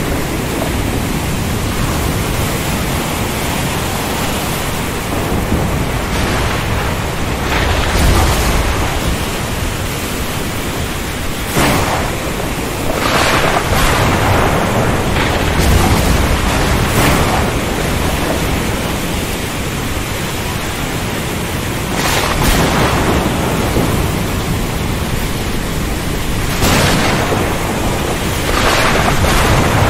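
Thunderstorm: a steady hiss of heavy rain, broken about eight times by sudden cracks of thunder. Some of the cracks roll on into deep rumbles.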